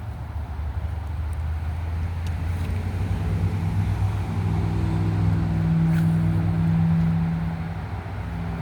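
A motor engine's low, steady hum that grows louder over several seconds and then eases off near the end, as a passing vehicle or boat does.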